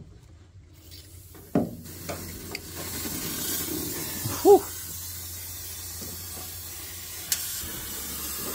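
Aerosol can of internal frame coating spraying through a long extension tube into a car's quarter panel: a steady hiss that starts with a click a little under two seconds in. A short rising-and-falling note sounds about halfway through, and another click comes near the end.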